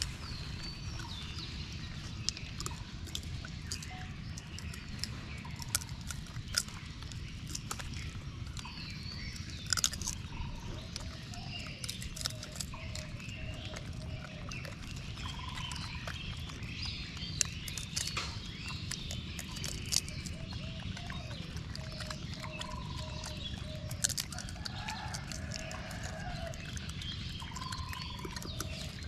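Birds chirping and calling: many short high chirps, with recurring runs of three to five short lower call notes. Scattered light clicks and a steady low rumble sit underneath.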